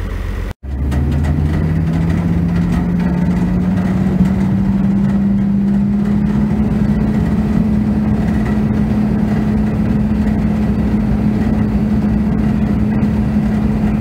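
Tractor engine driving an 8-foot Ag-Bag silage bagger through the PTO, running steadily under a constant hum. After a brief break about half a second in, the pitch rises over the next few seconds as the machine comes up to speed, then holds steady.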